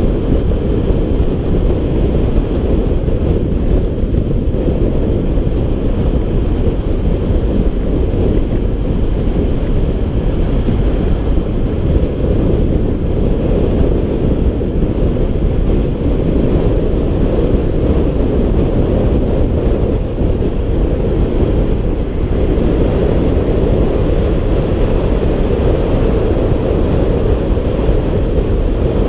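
Wind buffeting the microphone of a camera on a road bicycle descending at speed: a steady, loud, low rush with no breaks.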